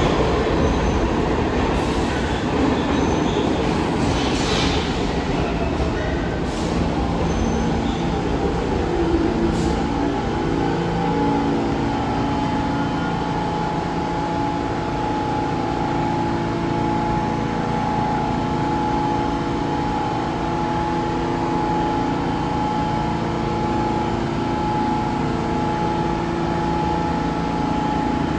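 New York City subway train in the station: loud rumbling at first with a slowly falling whine as it slows, a few brief squeals or hisses, then from about ten seconds in a steady hum with constant tones as the train stands.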